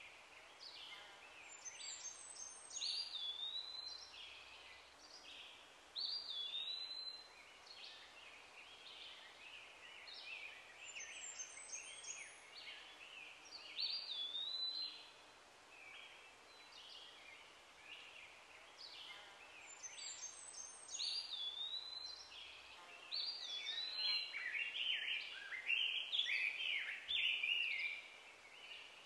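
Birds calling and singing over a faint steady hiss: short high chirps and a repeated swooping whistle. The same run of phrases comes round again about every nine seconds, and the calls are busiest and loudest near the end.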